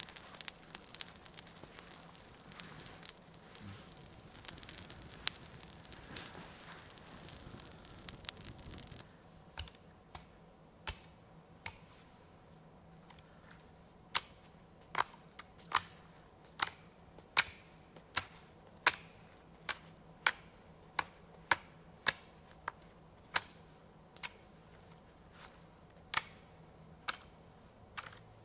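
Small campfire crackling and hissing; about nine seconds in it gives way to a long run of sharp wooden chopping strikes, roughly one every three-quarters of a second, with a short pause early on in the run.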